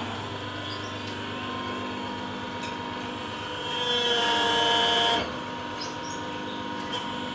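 Plastic bottle-cap injection-moulding machine running: its electric motor and hydraulic pump give a steady hum with several steady tones. About four seconds in, a louder, high whining hiss lasts about a second and a half.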